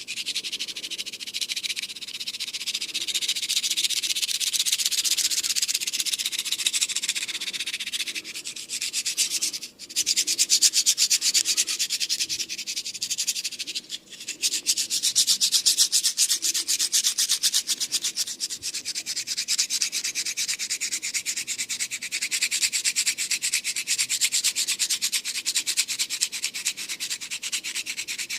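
Rapid, vigorous rubbing and scratching on hair and scalp by a barber's hands during a head massage, many strokes a second, with two brief pauses about ten and fourteen seconds in.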